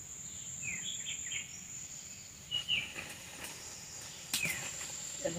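Steady high-pitched insect drone, like a cricket, with a bird giving short falling chirps every second or two. A single sharp click sounds about four and a half seconds in.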